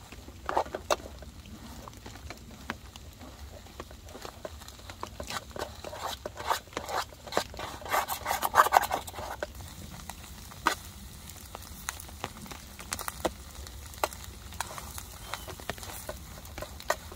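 A utensil stirring and scraping pulled pork in a titanium lunchbox set over a campfire to warm it. It makes a run of metal clicks and scrapes, busiest about halfway through.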